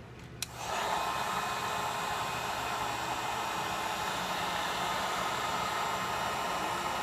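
Hot-air blower switched on about half a second in and then running with a steady rush of air, heating a phone's glass to soften the screen adhesive.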